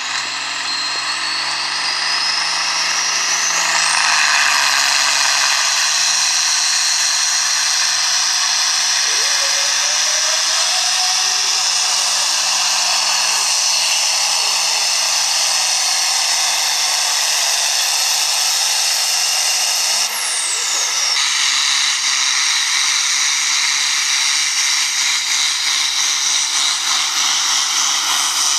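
Diesel farm tractor pulling a sled under full load: a high whine rises over the first few seconds and then holds steady over the labouring engine. About twenty seconds in the whine drops away sharply as that run ends. Another tractor's engine then runs under load, pulsing slightly.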